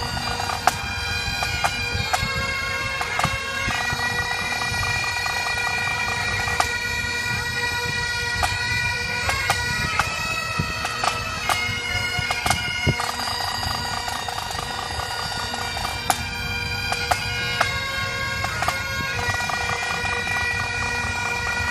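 Scottish pipe band playing a tune on Great Highland bagpipes, the steady drone under the chanter melody, with snare and bass drum strokes beating along.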